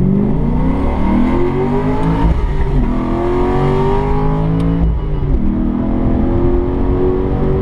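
Cammed HSV GTS V8, tuned to 285 rear-wheel kilowatts, accelerating hard through the gears. The engine note climbs steadily, drops sharply at two upshifts about 2 and 5 seconds in, and climbs again each time.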